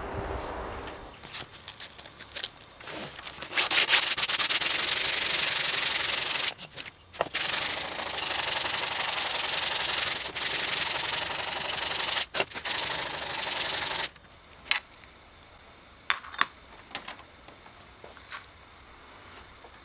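A wooden box being hand-sanded with an abrasive sanding sponge: fainter scraping at first, then about ten seconds of steady, loud scratchy rubbing strokes, broken by two short pauses. The sanding stops abruptly, leaving only a few light clicks and taps.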